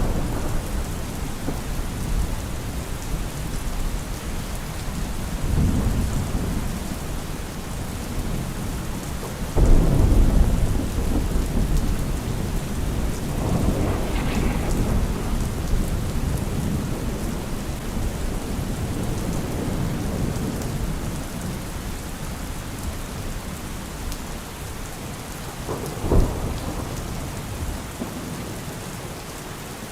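Steady rain with thunder rolling in and out: a loud, low rumble about ten seconds in, softer rumbles before and after it, and a short, sharp crack of thunder near the end.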